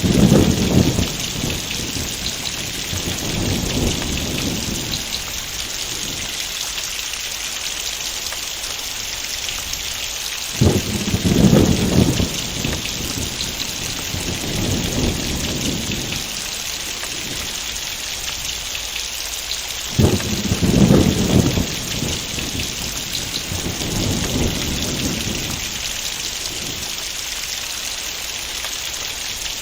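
Heavy rain falling with a steady hiss, and thunder. A rumble is already rolling at the start, then two more claps come about ten seconds apart, each beginning sharply and rolling on for several seconds.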